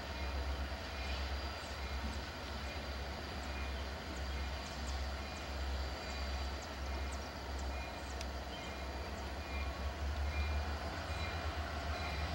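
Union Pacific EMD SD70M diesel-electric locomotives rolling slowly past, their engines giving a steady low rumble with faint light clicks, growing a little louder near the end as they draw closer.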